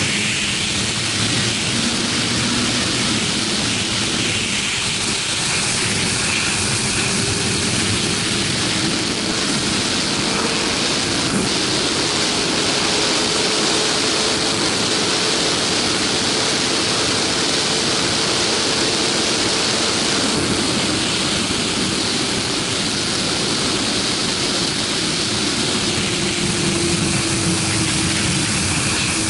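Wind rushing over the rider and camera at highway speed, with the 2011 Yamaha R6's inline-four engine running at a steady cruise underneath. The engine note rises slightly partway through, then eases back.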